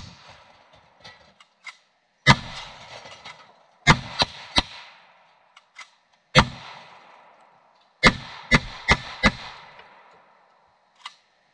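Gunshots, about ten in all, each trailing off in an echo. There is a shot at the start, a single one, a quick run of three, another single, then four in quick succession.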